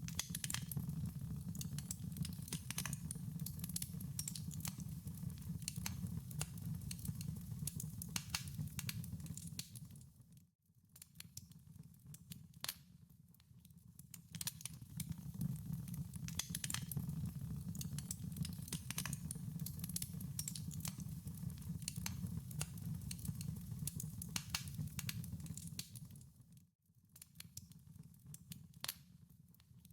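Wood fire crackling in a fireplace: many sharp pops and snaps over a steady low rumble of the burning. The sound fades briefly almost to nothing twice, about a third of the way in and near the end.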